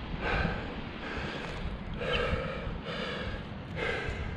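A climber breathing hard in steady, audible breaths, about one a second, five in all.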